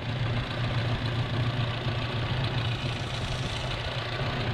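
Alfa Romeo Nord twin-cam four-cylinder engine idling steadily.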